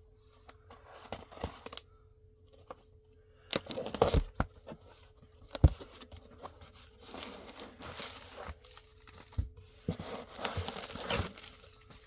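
Packaging being torn and rustled by hand as a shipment is opened, in irregular bursts, with one sharp knock about halfway through.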